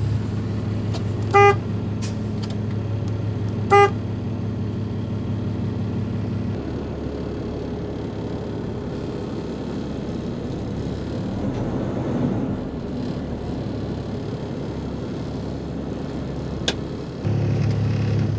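Kenworth T680 truck's diesel engine running with a steady low hum, with two short high beeps about two and a half seconds apart near the start. About a third of the way in the engine's hum drops and changes, then comes back near the end.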